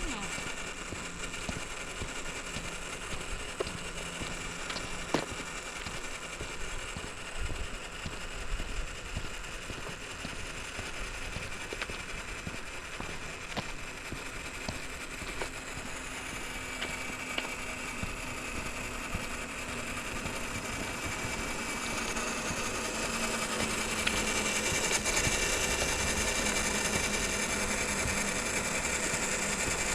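Electric motor and gearbox of a radio-controlled scale crawler truck whining steadily as it drives, getting louder about two-thirds of the way through.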